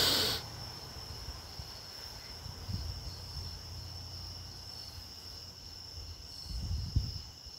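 Crickets chirping in a steady high trill. There is a brief rustle at the start and a low knock near the end.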